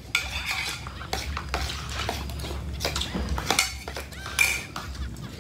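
Spoons scraping and clinking in plastic bowls as people eat: a run of irregular short clicks and scrapes.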